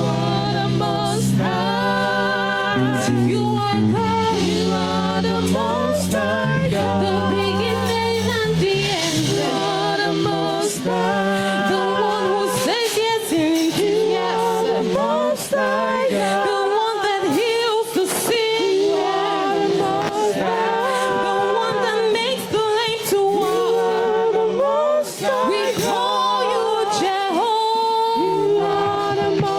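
Worship music: sung voice with wavering vibrato over sustained low held chords, the low notes dropping out about nine seconds in and leaving mostly voice.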